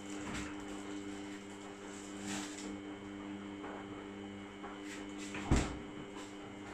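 Steady electrical hum with a few light knocks, and one louder thump about five and a half seconds in.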